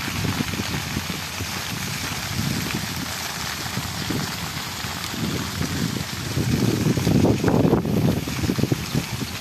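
Wind buffeting a phone microphone in gusts over a steady hiss, the rumbling gusts growing stronger about two-thirds of the way through.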